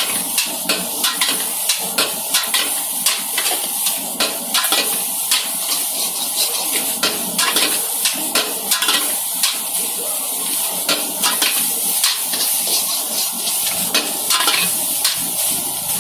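Metal ladle clanking and scraping in a wok as fried rice is stir-fried, with repeated strikes about twice a second over a steady sizzling hiss.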